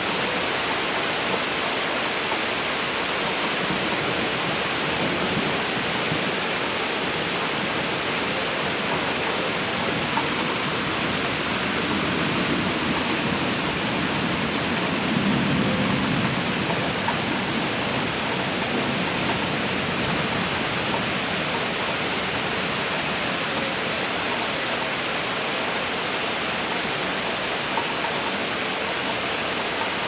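Steady rain storm: rain falling in an even, unbroken hiss, with a soft low swell about halfway through.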